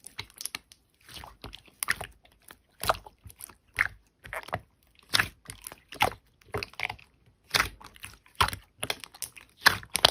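Slime being squished and pressed by hand, making irregular sticky clicks and crackling pops, about two a second.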